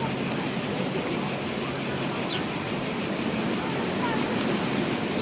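Ocean surf washing continuously on a beach, with a high, rapidly pulsing insect chirring from crickets or cicadas running steadily over it.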